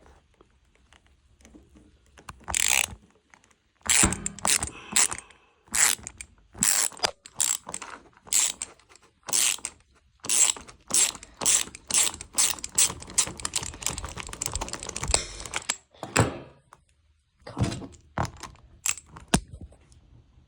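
Irregular plastic and metal clicks, knocks and rattles as the front wheel and tire are worked off a Traxxas Slash 4x4 RC truck. The clicks come thickest through the middle and stop for a moment near the end.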